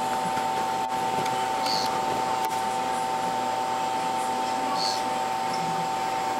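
A male Ranitomeya amazonica poison dart frog calling: two short, high buzzing calls about three seconds apart. They are faint beside a loud steady hum from a fan or other vivarium equipment.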